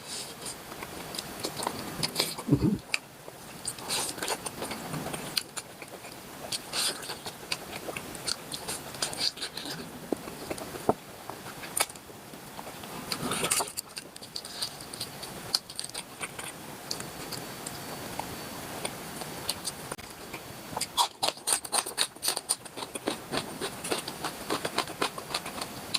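A person chewing and biting into cooked octopus: wet mouth smacks and short clicks, with a quick run of clicks a little over twenty seconds in.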